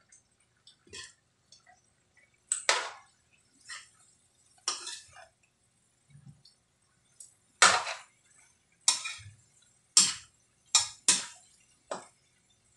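Metal spatula scraping and clinking against a metal wok as chunks of raw pork belly are stirred and turned, in short irregular strokes, closer together and louder in the second half.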